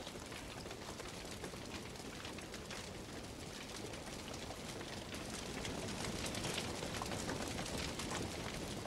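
Rain sound effect: a steady hiss of falling rain with a fine patter of drops, growing slightly louder about halfway through.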